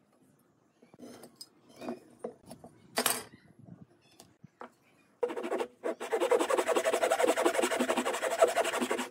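Handsaw cutting through a small wooden block with fast, short strokes, starting about five seconds in. Before that come light knocks and scrapes of a steel square and a pencil marking out the block.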